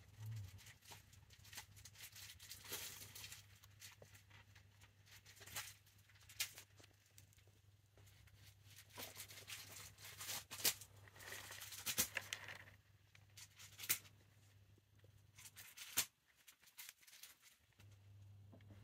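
Faint rustling and crinkling in a hamster cage's wood-shaving and paper bedding, with scattered sharp clicks and taps, over a low steady hum that drops out briefly near the end.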